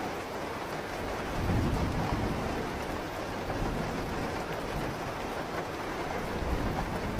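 Steady rain falling, with a low rumble of thunder swelling up about a second and a half in and dying away, and a fainter rumble near the end.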